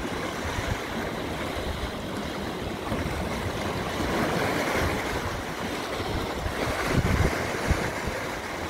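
Mediterranean surf washing and foaming over rocks at the foot of a cliff, a steady wash of water. Wind buffets the microphone now and then, with low bumps around the middle and near the end.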